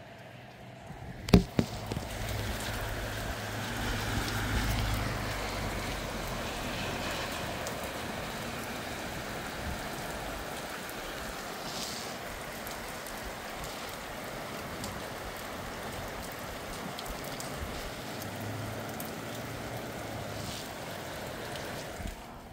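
Steady rain falling, coming in suddenly after a couple of sharp clicks about a second in and dropping away near the end. A low rumble runs under it for the first few seconds.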